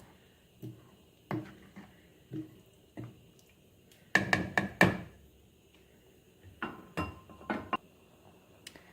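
Kitchen utensil knocking against a cooking pot of boiling curry: a few soft knocks, then a quick cluster of three loud strikes about four seconds in and three more about two and a half seconds later.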